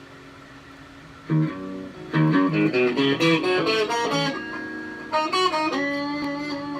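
Stratocaster electric guitar played on its neck-and-middle pickup setting with volume and tone knobs at full: a chord struck about a second in, a quick run of picked notes, then a final chord left ringing.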